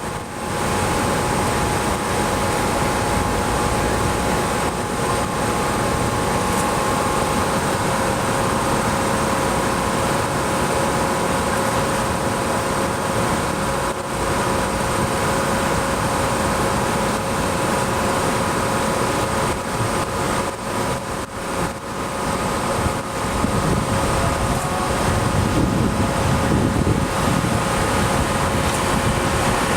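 Auxiliary equipment of a parked ex-Seibu 301 series electric train running steadily: a constant mechanical hum with several steady whining tones, including a high thin whine. The low rumble grows somewhat stronger in the last few seconds.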